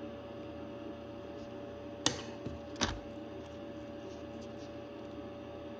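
Two short sharp clicks about two and three seconds in, with a fainter click between them, over a steady faint hum.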